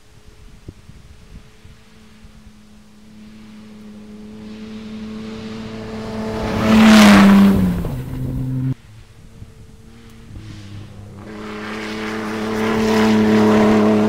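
Two cross-country rally cars at full speed on a dirt road, one after the other. The first engine grows louder as it approaches and drops in pitch as it passes, about seven seconds in, then cuts off abruptly. The second builds to its loudest near the end.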